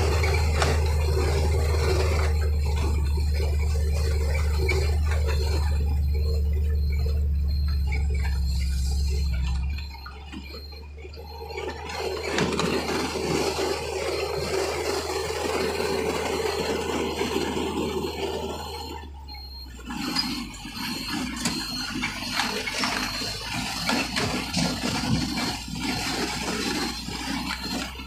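Truck running along a rough dirt road, heard from inside the cab. A steady low engine drone holds for the first ten seconds, then drops, leaving a noisier rumble with rattling and scraping.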